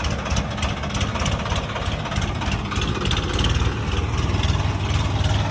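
Diesel farm tractor engine running as the tractor drives slowly toward the listener: a steady low engine note with a regular diesel clatter, getting a little louder as it comes closer.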